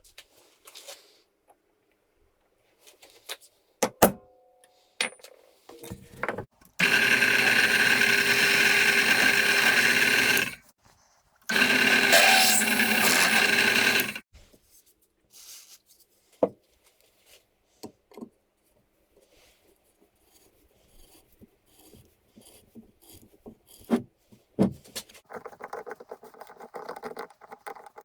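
Nutool CH10 bench drill press switched on and run twice, about three seconds each, with a steady whine. Scattered knocks and clicks come before and after.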